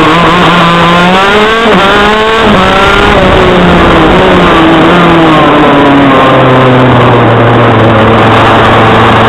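TM KZ10C 125 cc two-stroke shifter kart engine, recorded loud from on board. Its revs climb out of a corner and drop sharply once about two seconds in as the gear changes up, then climb again before the pitch eases down and holds steady.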